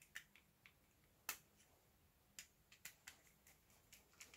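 Faint, scattered small clicks and taps as a screwdriver and wire are worked into the screw terminals of a solid-state relay, with one sharper click a little over a second in.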